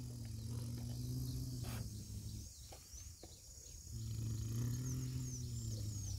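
A steady low hum from a small motor, which cuts out for about a second and a half midway and then starts again, with a few faint clicks. Birds chirp softly near the end.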